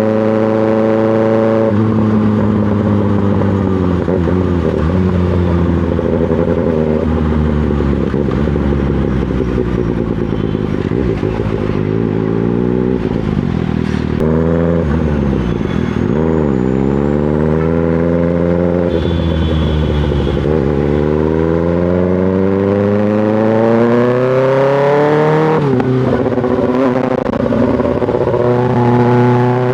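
2024 Kawasaki ZX-6R's inline-four engine running through an M4 GP slip-on exhaust while riding in traffic. The revs fall and pick up again in the middle, then climb in one long pull about two-thirds of the way in and drop sharply at an upshift before holding steady.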